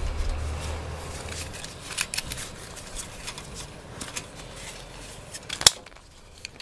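Hands fastening an OKIPPA folding parcel bag's plastic strap and lock fittings to a metal gate: a series of small clicks and ticks, with one sharp click near the end. A low rumble of handling sits under the first second or so.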